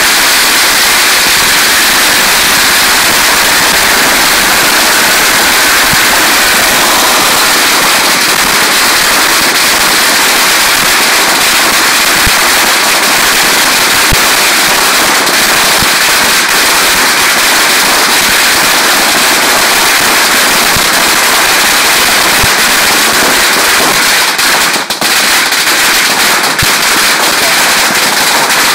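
Several hanging strings of Chinese firecrackers going off at once in a loud, dense, unbroken rattle of bangs, with a brief lull about 25 seconds in before the crackling picks up again.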